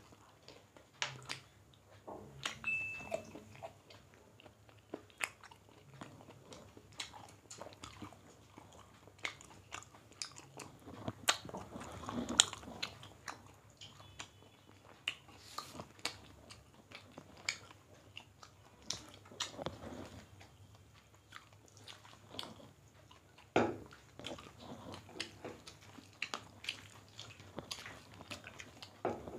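Two people chewing chicken curry and rice, with many short, irregular mouth clicks and smacks.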